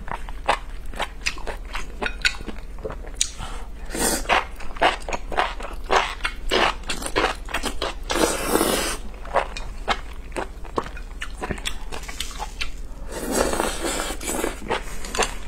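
Mukbang eating of enoki mushrooms in chili oil, picked up close by a clip-on microphone: a run of wet chewing and mouth clicks, with two longer slurps, one about eight seconds in and one about thirteen seconds in.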